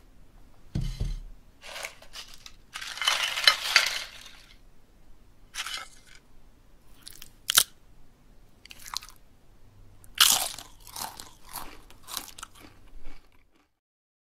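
Crunching sound effects of chips scooping guacamole: a string of crisp crunches in short bursts, with one sharp snap a little past the middle and a dense run of crunches near the end before the sound cuts off.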